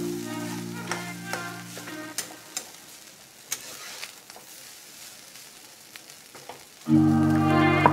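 A metal spatula scrapes and clinks against a metal pan while stir-frying rice, with a faint sizzle. Held background music chords fade out about two seconds in, and louder background music comes in about seven seconds in.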